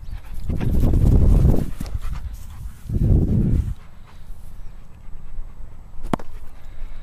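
Dog panting close to the microphone, in two loud swells of breath about a second in and about three seconds in, with a single sharp click a little after six seconds.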